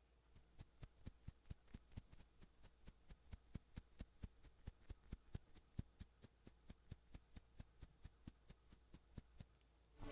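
Faint, regular clicks or snips, about four a second, some stronger than others.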